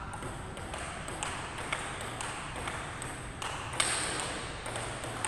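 Table tennis rally: a celluloid ball clicking off rubber paddles and the table in a string of sharp hits, the loudest nearly four seconds in.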